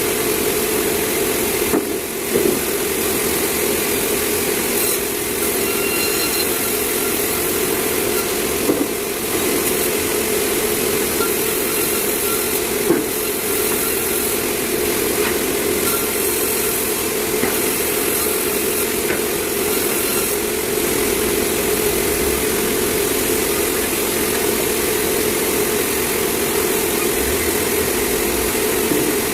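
Sawmill machinery running steadily, with a few brief knocks.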